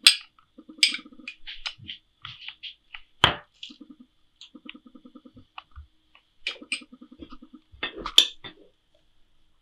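A metal spoon clinking and scraping against a dish as ketchup is spooned out and spread on dough, with several sharp clinks and short rasping scrapes between them.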